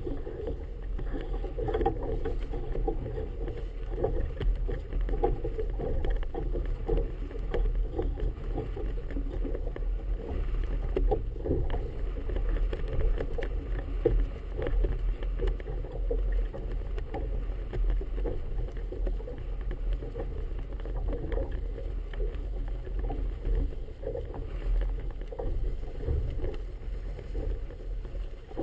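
Choppy harbour water slapping and splashing irregularly against a small boat's hull, over a steady low rumble of wind on the microphone.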